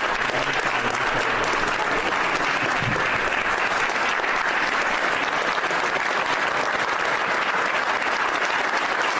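Sustained applause from a roomful of people, steady and even.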